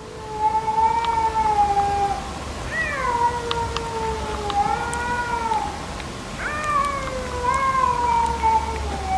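Cats caterwauling in a standoff before a fight: long, drawn-out wavering yowls, the threat calls of rival cats. Fresh, rising calls swell about three seconds and six and a half seconds in, then sink away.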